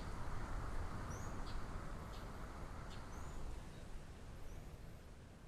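A small bird repeating a short, high, rising chirp about every second and a half, over steady outdoor background noise that slowly fades away.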